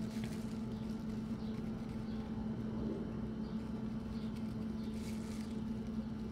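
A steady low background hum with a few faint, soft brushing sounds from a small brush dabbing powder onto chicken wings.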